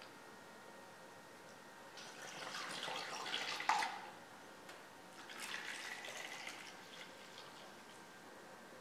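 Coffee dye poured through a plastic funnel into a glass mason jar, in two pours: the first starts about two seconds in and ends with a sharp knock, and the second, quieter one comes about five seconds in.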